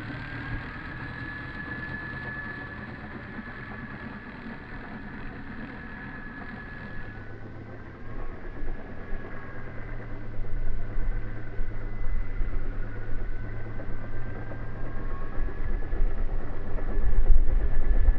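Small motor and propeller of a Magnus-effect RC plane whining in flight, the pitch wavering gently up and down with the throttle. From about eight seconds in, a heavy low rumble joins and grows louder.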